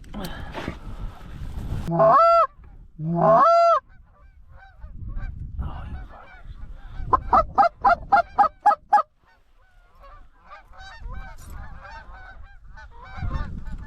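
Canada goose honking: two long loud honks, then a quick run of about seven short clucks, then many fainter overlapping honks from a flock near the end.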